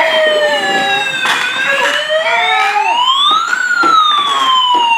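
A battery-operated toy fire truck's electronic siren wailing: a slowly falling tone that sweeps back up about halfway through, then falls again. A few brief knocks of the toy sound over it.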